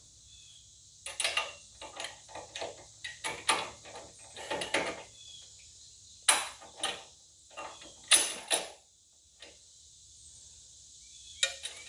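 Irregular metal clanks and knocks of steel 3-point hitch parts on a Kubota BX23S compact tractor being handled and fitted, coming in short clusters, with the sharpest knocks about six and eight seconds in.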